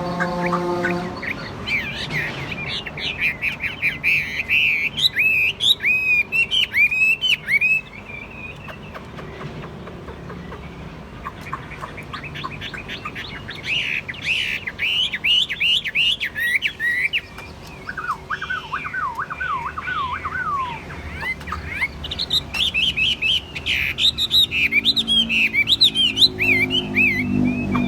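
Chinese hwamei singing in bursts of rapid, varied whistled phrases, the notes sliding up and down. A stretch of lower swooping notes comes in the middle.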